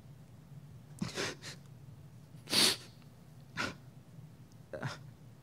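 A man's sharp sniffs and breaths into a close microphone, four in a few seconds with the loudest in the middle, as he holds back tears.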